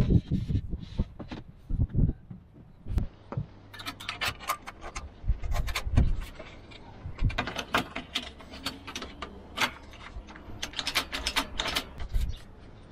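Aluminium solar panel frame and clamp knocking and scraping against an aluminium roof-mount rail, then quick runs of clicks as a hand tool tightens the clamp bolt. A few low thumps come in the first couple of seconds.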